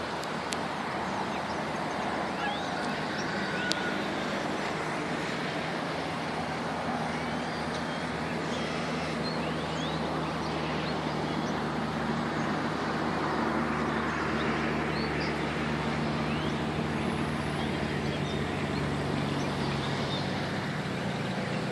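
City street ambience: steady traffic noise with an engine hum that gets a little louder past the middle, and scattered short bird chirps over it.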